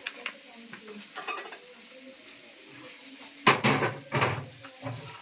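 Kitchen utensils and cookware clattering, with scattered light clicks and two louder knocks about three and a half and four seconds in, over a faint sizzle of onions and capsicum frying in oil.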